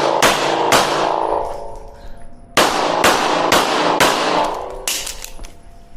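Rapid gunshots fired in quick strings: a few in the first second, a short pause, then four or five more from a little past halfway on, with steel targets ringing after the hits.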